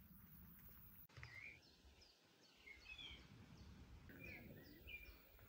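Faint birds chirping, a scattering of short high calls over quiet outdoor background noise.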